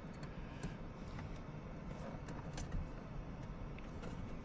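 Faint scattered small clicks and handling noise as a wire connector is pushed onto the back of a panel switch, over a steady low background hum.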